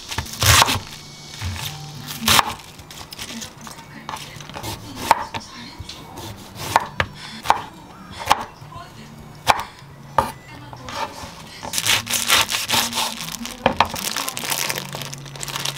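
Kitchen knife cutting cabbage and then zucchini on a wooden cutting board: single sharp knocks of the blade meeting the board, a second or two apart, with a busier run of knocks and handling noise near the end.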